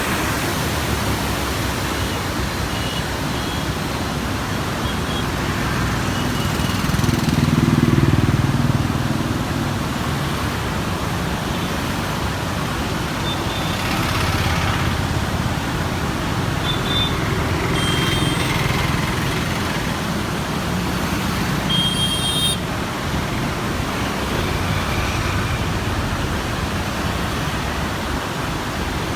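Heavy flood water pouring through the open barrage gates in a steady, loud roar. A low swell rises about eight seconds in, and a few short high beeps come through near the middle and later.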